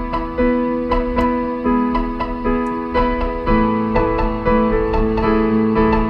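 Piano music: notes and chords struck about twice a second, each left to ring.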